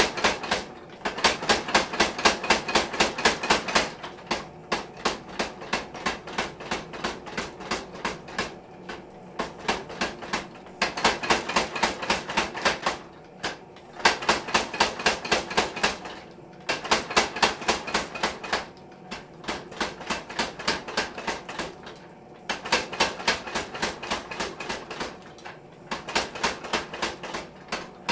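Power hammer striking a red-hot bar, about four to five blows a second, in runs of a few seconds with short pauses between them; some runs are louder than others.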